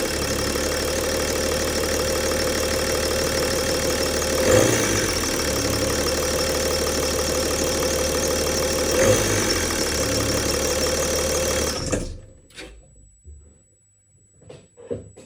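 BMW M57 3.0 straight-six diesel idling steadily, with two brief surges. The engine is running again after the intake manifold refit and glow plug change. The sound cuts off abruptly near the end, leaving a few faint knocks.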